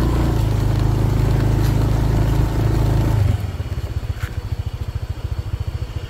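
Motorbike engine running under way, then dropping about three seconds in to a quieter, even idle.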